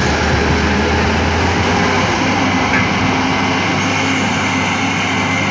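JCB 3DX backhoe loader's diesel engine running steadily under work; its low drone drops away about two seconds in.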